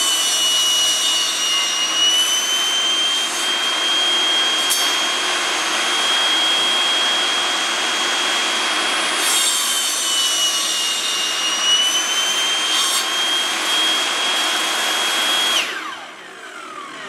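Rock&Rocker 8-1/2-inch 15-amp jobsite table saw running with a steady high whine while its blade crosscuts a 2x4 stud; twice the pitch sags a little as the blade takes the load of the wood. Near the end the saw is switched off and the whine falls away as the blade spins down.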